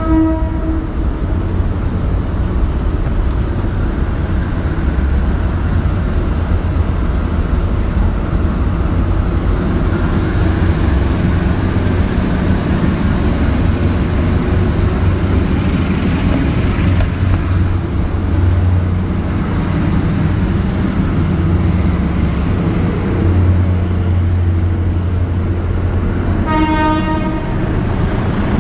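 Diesel train on the Philippine National Railways line running with a steady low engine drone. Its horn sounds briefly right at the start and again for about a second near the end.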